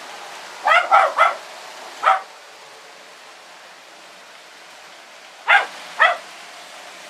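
A dog barking in short sharp barks: three quick barks about a second in, one more just after two seconds, then two near the end. Under them runs the steady whir of toy trains rolling on three-rail track.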